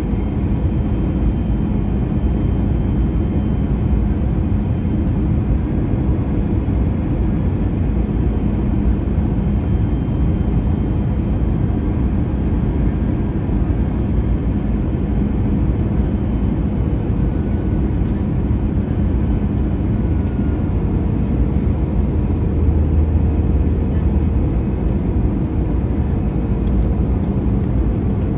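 Airbus A321 airliner in flight on its way in to land: a steady, loud rumble of engines and rushing air, with a faint constant hum through it.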